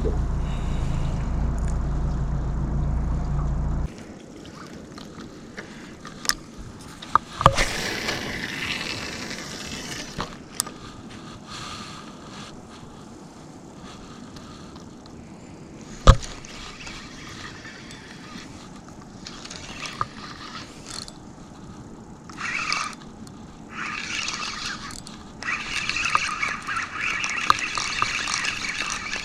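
Boat motor running steadily, then cut off abruptly about four seconds in. A few sharp knocks follow, and near the end come bursts of hiss.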